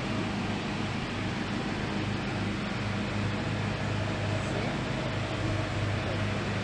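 Steady low machine hum under an even hiss, unchanging throughout.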